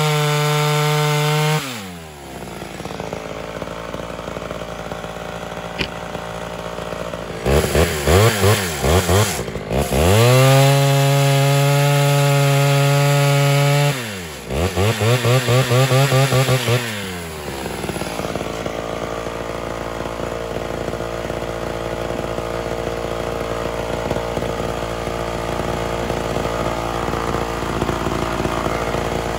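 Ported Homelite Super XL Auto two-stroke chainsaw cutting logs at full throttle, dropping back about two seconds in. Quick throttle blips follow, then another full-throttle cut from about ten to fourteen seconds and more blips. From about eighteen seconds on it runs at a steady lower speed.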